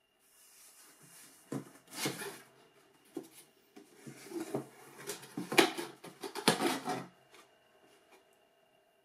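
Cardboard shoebox being handled and opened and a canvas sneaker lifted out: scraping and rubbing with several sharp knocks of cardboard, dying away about seven seconds in.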